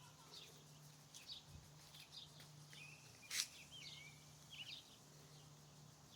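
Faint birdsong: short chirps and warbling calls repeating throughout, with one sharp click a little past the middle.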